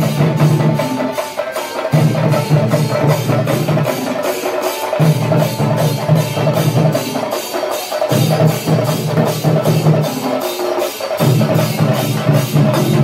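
Chenda melam: a troupe of chenda drummers playing a fast, steady beat of stick strokes, about three or four a second. A deeper sound swells in and drops out in regular cycles of about three seconds.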